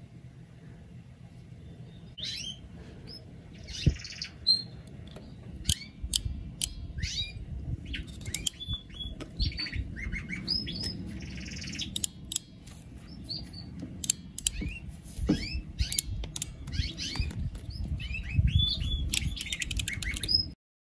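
Small birds chirping over and over, short falling chirps, with occasional sharp clicks and low handling noise from hands working a battery wire and a crimping tool.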